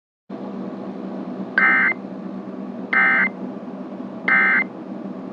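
Emergency Alert System end-of-message data burst: three short bursts of buzzing, warbling digital tone, each about a third of a second long and a little over a second apart. They play over a steady radio-like hiss with a low hum.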